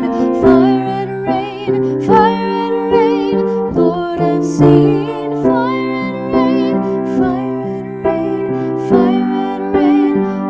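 Piano accompaniment under a woman's voice singing an alto part in sustained phrases with vibrato.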